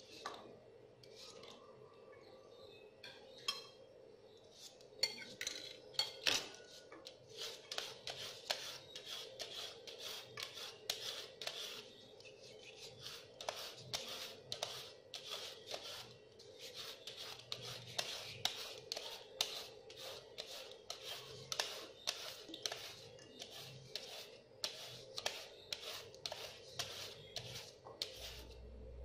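A carrot being shredded with a julienne peeler over a metal bowl: after a few scattered cuts at first, a steady run of quick scraping strokes, about three a second.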